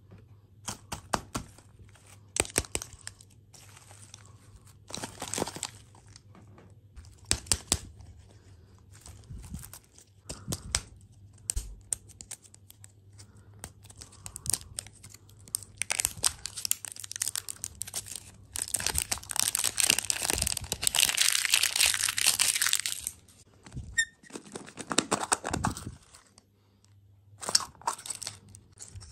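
Thin foil wrapper being crinkled and peeled off a plastic surprise egg, with scattered sharp clicks and taps of fingers on the eggs in the first third. The crinkling grows dense and loudest about two-thirds through, with a shorter burst after it and a few clicks near the end as the plastic egg is opened.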